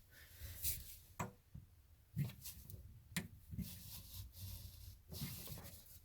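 Faint, scattered metal clicks and knocks with some rubbing: a crescent wrench working a stuck under-sink water shutoff valve.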